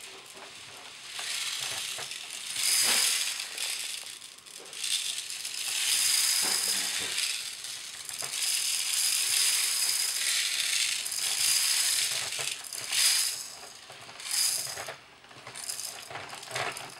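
Bruder toy cement mixer's plastic drum being cranked backward by hand to unwind it, the loose toy cement inside rattling in uneven swells.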